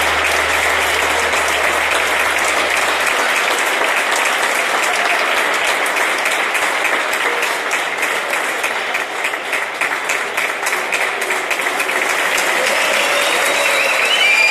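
Circus audience applauding steadily, the clapping dipping a little in the middle and swelling again, with voices calling out near the end. A low steady tone stops about three seconds in.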